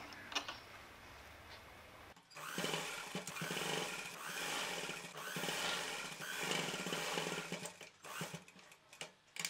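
Domestic sewing machine running, stitching a line of top stitching along a seam, starting about two seconds in and stopping a second or two before the end. Light clicks of the fabric being handled before and after the run.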